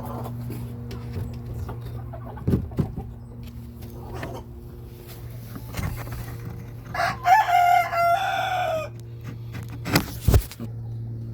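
A rooster crows once, about seven seconds in, a single crow just under two seconds long. A steady low hum runs underneath, with a few dull thumps.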